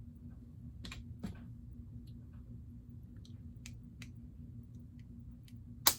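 Plastic Lego pieces clicking and tapping as they are handled and pressed together, a string of sharp separate clicks ending in one loud snap near the end as a piece seats.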